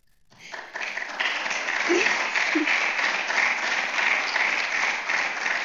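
Audience applauding: the clapping swells up within the first second and carries on steadily.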